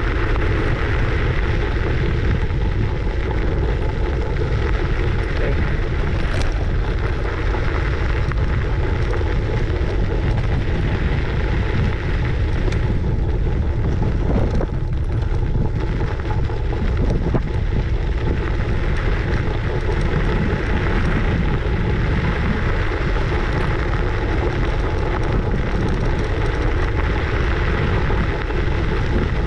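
Wind buffeting a GoPro Hero 8's microphone on a moving scooter, a steady dense rush heaviest in the low end.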